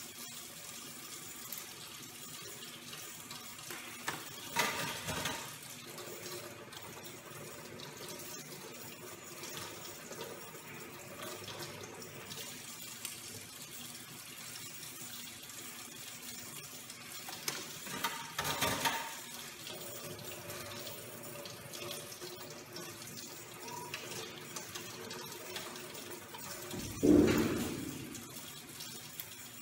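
Tap water running steadily into a stainless steel sink as steel surgical instruments are rinsed under the stream, with a few brief louder sounds, the loudest near the end.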